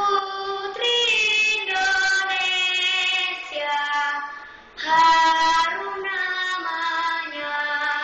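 A young girl singing solo and unaccompanied, holding long notes in phrases, with a brief break for breath a little past halfway.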